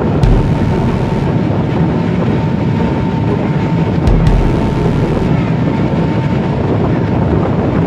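Steady rumble of a passenger ferry under way, its engine and wash heard together, with wind buffeting the microphone in two brief gusts.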